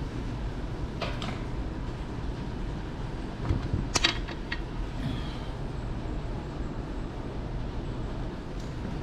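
A few short metallic scrapes and clicks as a homemade mild-steel facing cutter is worked by hand over the aluminium clutch fork pivot boss of a Ford manual transmission case, the sharpest one about four seconds in, over a steady low shop rumble.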